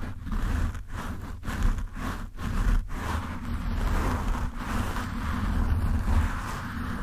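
Fingertips scratching and rubbing a foam microphone windscreen right on the mic: a rough, dense scratching with a deep rumble, broken by several brief pauses in the first three seconds and then running on without a break.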